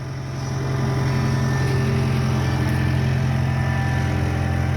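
Skid steer engine running steadily, getting louder about half a second in as the machine is driven in reverse.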